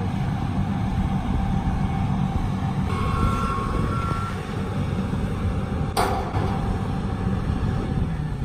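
Diesel engine of a John Deere 200C LC excavator running steadily under load while it lifts a corrugated steel culvert shelter. Two short high beeps sound about three seconds in, and a single sharp knock about six seconds in.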